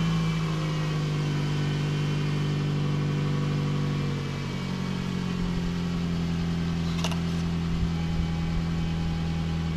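Toyota Camry engine idling steadily, freshly refilled with oil after an oil change. Its idle speed drops slightly about four seconds in, and a short click sounds near seven seconds.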